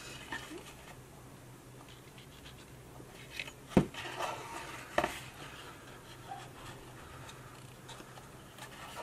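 Hands handling and pressing a cardstock paper box: faint paper rustling with two sharp light knocks, about four and five seconds in.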